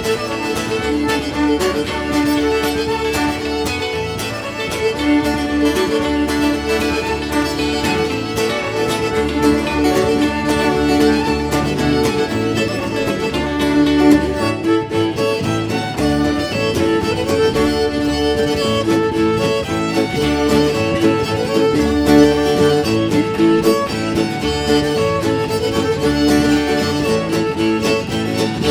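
Ceilidh band playing a lively traditional reel: two fiddles carry the tune over strummed acoustic guitars and a plucked double bass.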